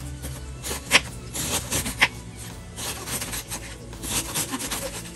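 Kitchen knife shredding cabbage on a wooden cutting board: crunching slices through the leaves, with sharp knocks of the blade on the board about one and two seconds in, then runs of quicker cuts.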